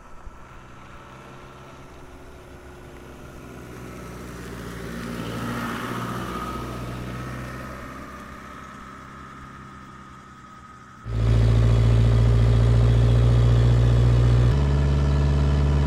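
A vehicle passes by, its sound swelling and fading over traffic noise. About eleven seconds in, a loud background music intro of held low chords starts suddenly and changes chord a few seconds later.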